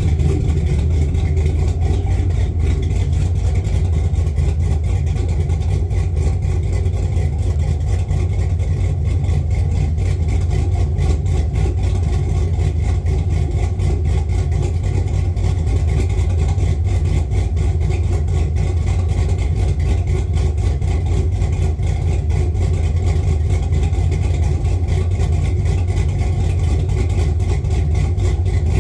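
Cammed 6.0-litre LS V8 running steadily at an even speed, a deep, unchanging exhaust note.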